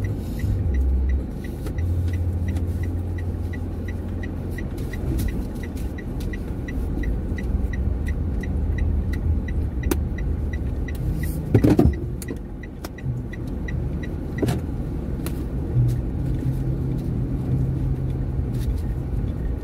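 Car running, heard from inside the cabin as a steady low rumble. The indicator ticks about twice a second and stops about two-thirds of the way in. A short louder rush comes a little past halfway.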